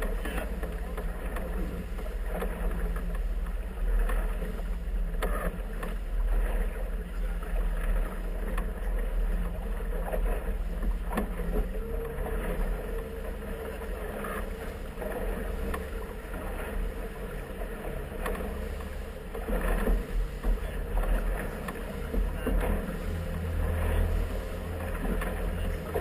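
Motor launch under way, its engine giving a steady low drone, with water splashing irregularly against the inflatable hull and wind on the microphone. The engine's low note grows stronger over the last few seconds.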